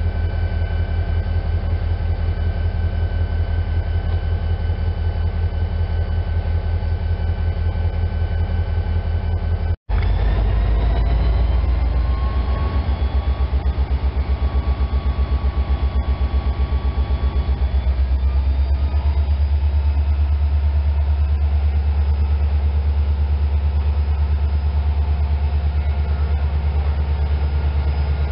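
EMD SD40-2W diesel-electric locomotive's 16-cylinder two-stroke engine running at low throttle with a steady low throb as it moves slowly over a grade crossing. A brief rising whine follows a short break about ten seconds in, and the low drone grows heavier in the second half.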